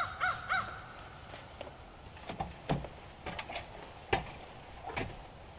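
A crow cawing, the last few caws of a quick run in the first half second. Then scattered sharp knocks and taps, the loudest about four seconds in, from window trim being fitted by hand on a wooden cabin wall.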